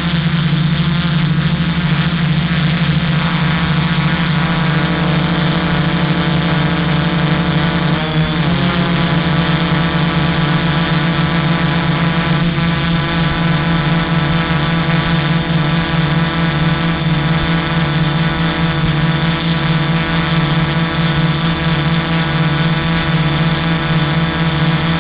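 Quadcopter's electric motors and propellers running steadily while hovering, heard from its own onboard camera, with a brief waver in pitch about eight seconds in.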